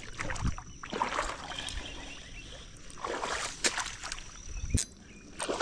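Water sloshing and splashing around a person wading in, in several uneven bursts, with a sharp knock near the end.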